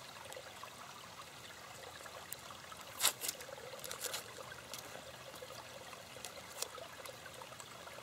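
Gently trickling stream, with sharp crinkles and rips as an adhesive bandage's paper wrapper is peeled open by hand, the loudest about three seconds in.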